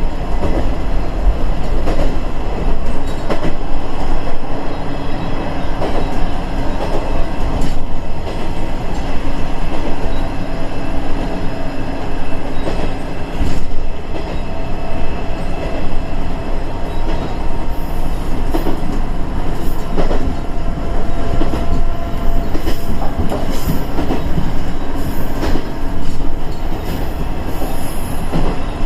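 KiHa 110 series diesel railcar running on the line, heard from inside: a steady engine and running noise, with the wheels clicking now and then over rail joints. Faint high wheel squeal comes in during the second half.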